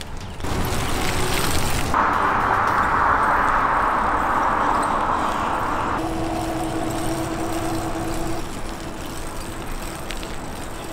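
Road traffic noise: a car going by on an asphalt road, a steady rush of tyre noise that changes abruptly several times, with a steady hum for a couple of seconds past the middle.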